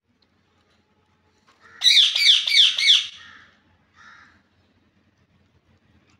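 A green parrot calling: a quick run of four harsh, loud calls about two seconds in, followed by one fainter call near four seconds.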